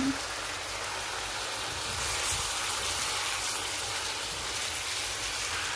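Chicken and vegetables sizzling as they sauté in a pan: a steady hiss, a little louder from about two seconds in.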